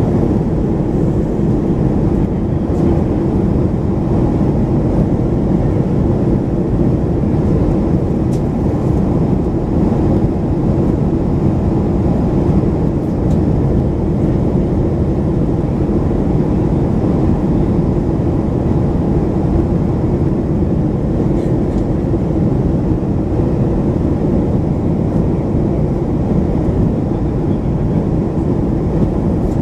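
Steady cabin noise inside a Boeing 737-500 in flight, heard from a window seat over the wing: the CFM56-3 turbofan engines and rushing airflow make an even, unchanging low roar.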